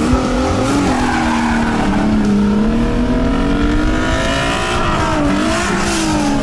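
Two cars, a Mitsubishi FTO and a Toyota Altezza, accelerating flat out side by side from a standing start. Their engines rev hard, the pitch climbing and dropping back as they change gear, with wheelspin at the launch.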